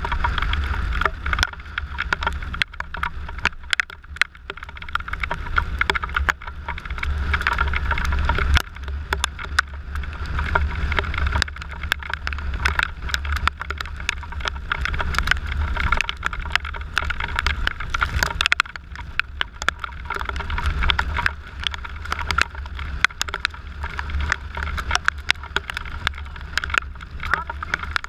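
Riding noise from a Suzuki Burgman 650 maxi-scooter at speed on a wet road in the rain: steady wind rumble on the camera microphone with tyre hiss. Frequent sharp ticks run through it, typical of raindrops striking the camera.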